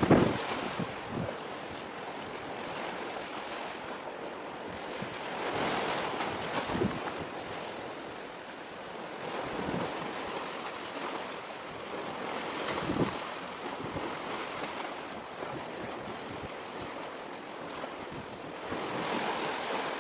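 Wind blowing on the microphone over sea waves, a steady rushing that swells and fades every few seconds, with a few low buffeting thumps.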